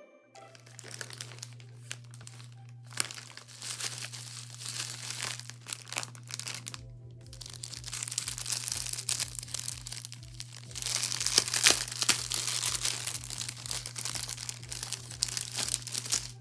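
Thin clear plastic bags crinkling and rustling as hands open them and sort through small items, loudest about eleven seconds in.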